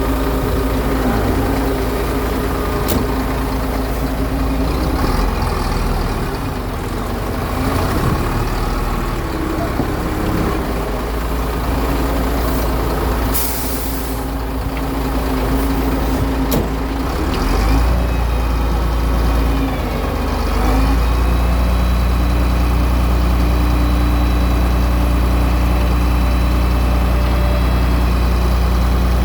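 Heavy diesel truck engines running on a concrete paving job. There is a short hiss a little before halfway, and from about two-thirds in one engine settles into a steady drone.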